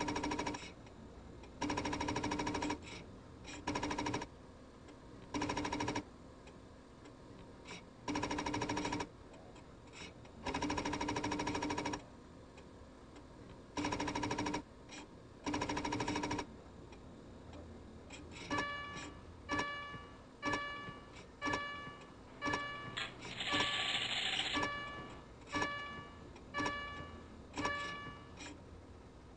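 Computer-terminal sound effects: a buzzing, typewriter-like chatter in about eight bursts, up to about two seconds each, as text prints on screen, then a countdown of short electronic beeps, about one a second, with a brief hiss partway through.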